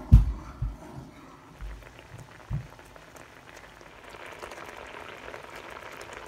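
A few dull knocks from a wooden spatula stirring in a wok of sauce, then from about four seconds in a steady bubbling crackle as the soy and pineapple sauce simmers to reduce.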